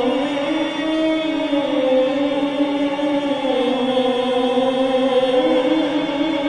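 A man's voice in melodic Quran recitation (tilawah) through a microphone, drawing out one long unbroken phrase that wavers slowly up and down in pitch with ornamented turns.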